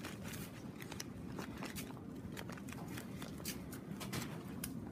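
Faint crinkling of crumpled newspaper and masking tape being handled, with scattered small crackles.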